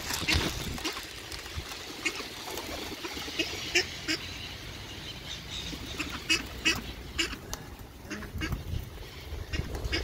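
Mallard ducks quacking in short calls scattered through, with feral pigeons flapping their wings.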